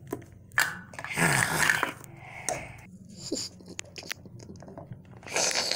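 Plastic toy figures being handled: scuffs and small clicks, with a longer noisy rustle about a second in and another near the end.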